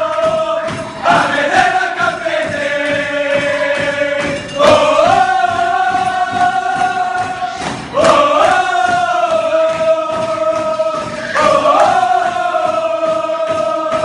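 A group of men singing a celebration chant together in unison, loud, each phrase opening with an upward slide and then held as a long note, the phrase repeating about every three and a half seconds.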